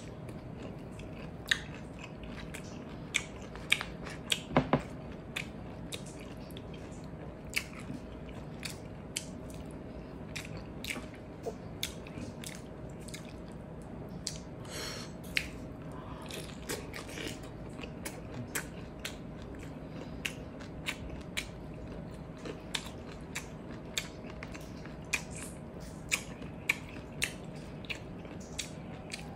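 Close-up eating sounds of a person chewing salted-egg shrimp and rice: irregular wet mouth clicks, smacks and small crunches, with a burst of louder ones about four seconds in. A faint steady hum runs underneath.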